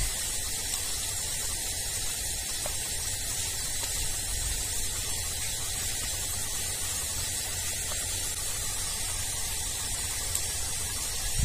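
Steady hiss with a low, fluttering rumble of wind on the microphone.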